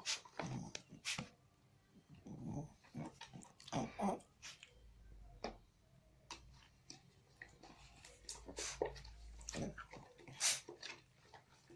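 Homemade glue-and-borax slime being stirred and pressed with a spoon in a plastic tub: irregular sticky squelches, pops and clicks as the slime begins to set.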